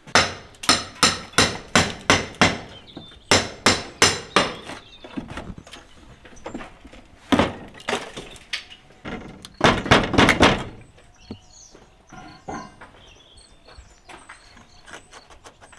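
Hammer blows in quick runs of strikes, about three a second, knocking at an old wooden window frame set in a brick wall to loosen it. The strikes stop about two-thirds of the way through.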